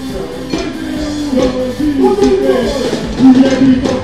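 A live band playing: a melody moving in steps over a drum beat.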